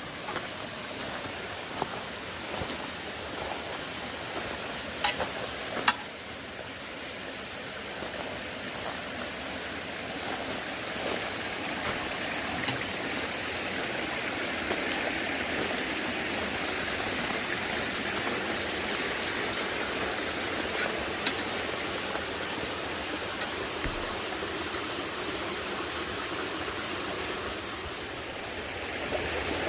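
Steady rushing of a shallow mountain stream, with a few sharp knocks about five and six seconds in.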